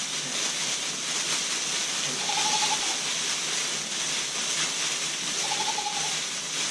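A bundle of leafy green branches shaken steadily in the hands, a continuous hissing rustle of leaves.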